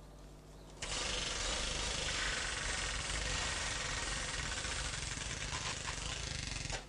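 Toy machine gun rattling without a break. It starts suddenly about a second in and runs for about six seconds.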